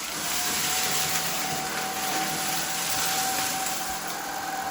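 Shark IZ320UK cordless stick vacuum with Duo Clean brush roll, just switched on and running steadily on its normal (mid) power setting, a rushing suction noise with a steady whine over it.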